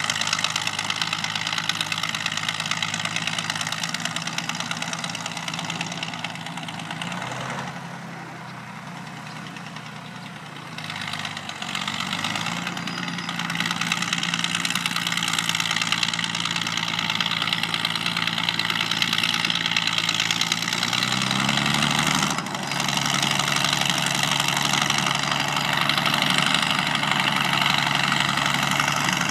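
Fowler Challenger 22 crawler tractor's engine running steadily while it tows a disc harrow over stubble. The engine is quieter and lower between about seven and twelve seconds in. It climbs in pitch and then drops back about twenty-one seconds in.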